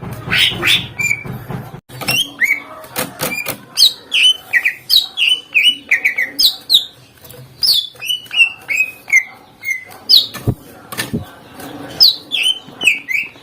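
Green leafbird (cucak ijo) singing a fast, varied song of sharp clicks and short whistled notes that slide downward, many repeated in quick runs.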